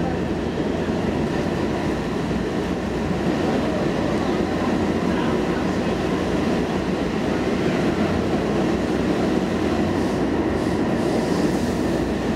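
Stockholm Metro C14 subway car running in a tunnel, heard from inside the carriage: a steady rumble of wheels on rail with a faint steady whine above it, growing a little louder about four seconds in.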